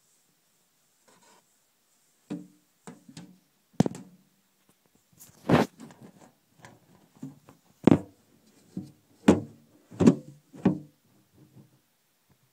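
Handling noise against a plastic reptile tub: a string of irregular knocks and thumps, about seven strong ones, with scraping and rustling between them.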